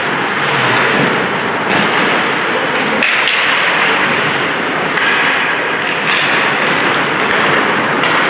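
Ice hockey game in play in a rink: a steady din with several sharp knocks, about 3 s in, twice, and again about 6 s in and near the end.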